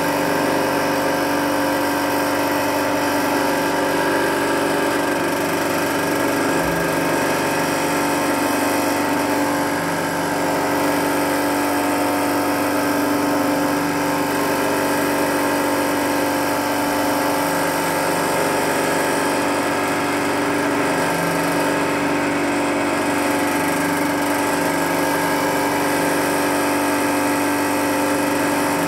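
Wei Jie WJ-30P thread winding machine running steadily, its electric motor humming at a constant speed as it winds embroidery thread onto cones.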